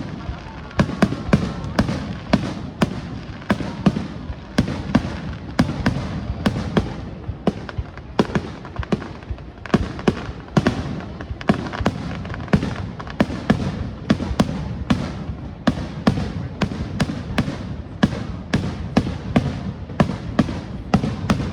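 Aerial fireworks display: a rapid, continuous barrage of sharp bangs, several a second, over a steady low rumble.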